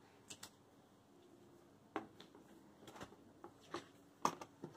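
Soft handling noises from a clipboard being carried and set down on a surface: a few scattered light knocks and rustles, the loudest about four seconds in.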